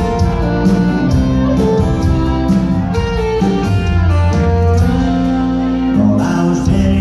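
Live country band music from the stage, loud and steady, with sustained instrument notes and some singing.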